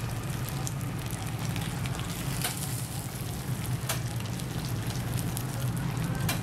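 Bánh xèo batter with shrimp and bean sprouts sizzling and crackling in oil in a small cast-iron pan, with a few sharper pops. A steady low hum runs underneath.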